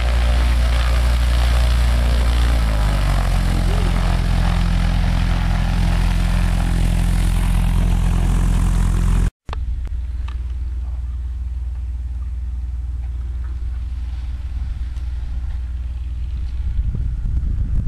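Fournier RF5 motor glider's flat-four piston engine and propeller running close by, its pitch stepping up about three seconds in as the revs rise. After a sudden break about nine seconds in it is heard fainter, from farther off.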